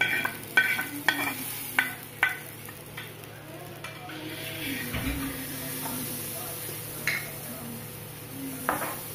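Kitchen utensils clinking against cookware: a quick run of ringing clinks at the start and two more near the end, over a low sizzle of frying oil.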